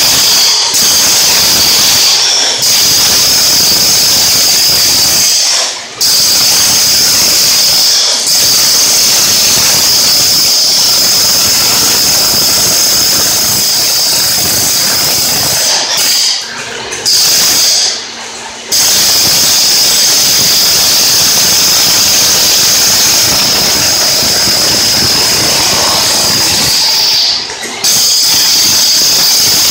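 Corded electric demolition hammer chiseling floor tile off a concrete slab: loud, near-continuous hammering with a shrill, high-pitched edge, stopping briefly a few times (about six seconds in, twice in the middle, and near the end).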